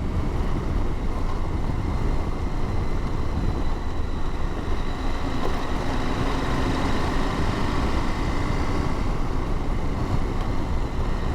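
Motorcycle riding at a steady pace: engine and wind noise heard through an in-helmet microphone, with a faint whine that grows slightly in the middle.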